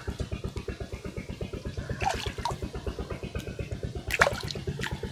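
A small engine running steadily with a rapid, even low thudding, while water splashes briefly about two seconds in and again, louder, near the end as the net is worked in the pond.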